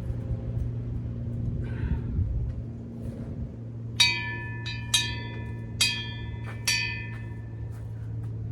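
A hanging bell, freshly repaired and rehung, struck four times about a second apart, each strike ringing out clearly and fading. A steady low hum runs underneath.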